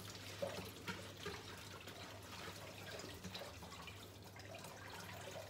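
Water splashing and dripping in a kitchen sink as leeks are rinsed in a plastic colander, with small scattered splashes throughout.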